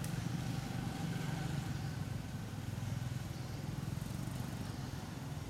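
A steady low motor hum, like a vehicle engine running at a distance.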